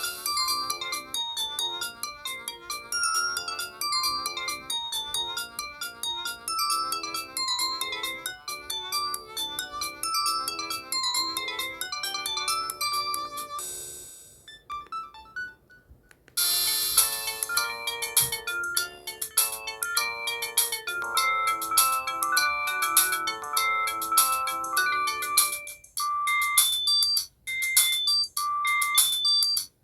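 Huawei T261 mobile phone ringtones playing in turn: a quick tune of short melodic notes that fades out about halfway, then after a short pause a different tune starts.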